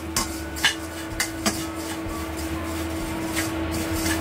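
A metal spatula scraping and tapping against a ZWILLING Nova Plus stainless wok as it tosses a dry, crumbly fried-garlic and breadcrumb mixture, with several sharp scrapes and clicks over a steady hum.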